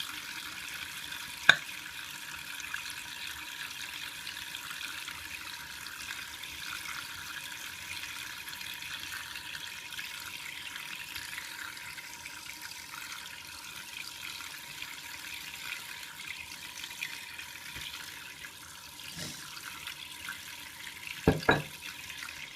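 Shaving brush working a lather from Col. Conk shaving soap: a steady wet, frothy swishing. Sharp knocks sound about a second and a half in and again, loudest, as a quick pair near the end.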